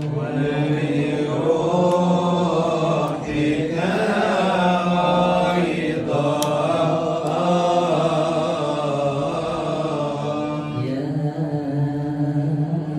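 A male voice chanting a slow, melismatic Coptic liturgical melody unaccompanied, holding and gliding long notes without pause.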